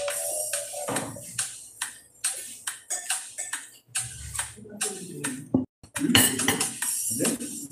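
Eating sounds at a table: spoons clinking and scraping on steel bowls and plates, with many short clicks of chewing and lip smacking. Background music fades out about a second in.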